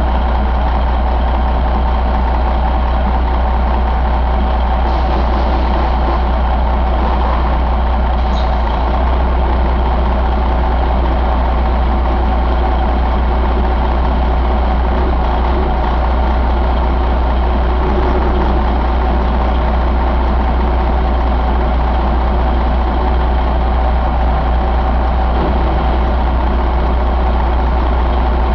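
2009 Detroit Diesel Series 60 14.0-litre inline-six diesel engine idling steadily in the truck, heard up close at the engine bay.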